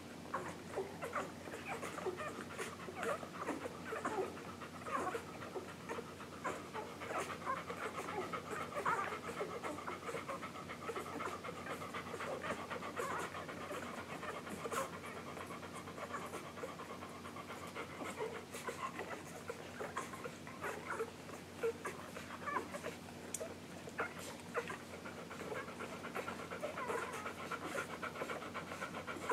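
Newborn English golden retriever puppies suckling from their mother: a continuous, irregular stream of small squeaks, grunts and sucking clicks.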